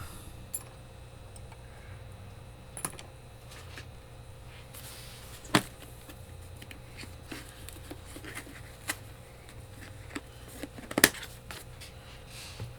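Scattered small clicks and knocks of metal gumball-mechanism parts being handled as the quarter wheel is taken out and cleaned, with two sharper knocks about five and a half seconds in and about eleven seconds in.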